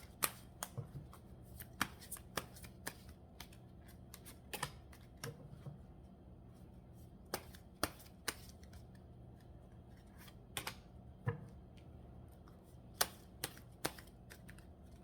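Symbolon tarot cards being shuffled and handled by hand: scattered, irregular sharp card snaps and flicks.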